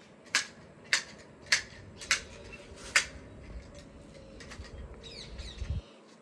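Garden shears snipping five times in quick succession, about two cuts a second, with a pause before the last. A few short bird chirps come near the end.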